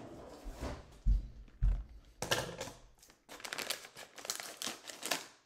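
Two dull thumps, then a silvery plastic bag of baking chips being crinkled and pulled open, crackling in quick dense bursts from about two seconds in.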